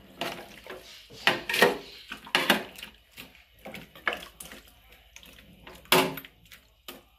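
Chicken pieces being stirred in a large metal cooking pot with a metal spoon: irregular scraping and knocking strokes of the spoon against the pot, with the wet slosh of the meat and its liquid.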